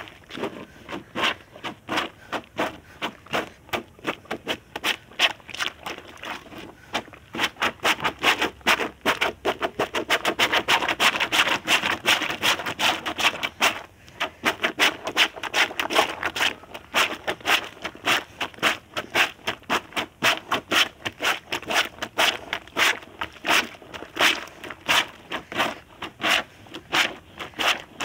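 Homemade plunger washer, a plastic bottle on a wooden pole, pumped up and down in a bucket of soapy laundry. Each stroke gives a wet sloshing swish through water and suds, in a steady rhythm of two or three strokes a second, a little quicker in the middle.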